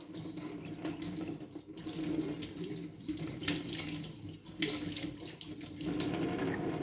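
Water running from a kitchen tap over a drinking glass being rinsed, pouring off the glass and splashing into the sink, the flow rising and falling as the glass is turned under it.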